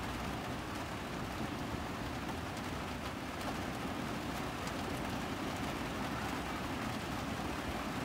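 Steady rain on an RV's roof heard from inside, a constant hiss with a few faint ticks of drops.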